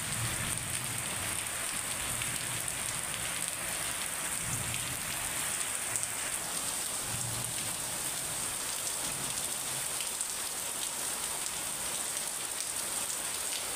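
Heavy rain pouring steadily onto a concrete courtyard and rooftops: an even, unbroken hiss.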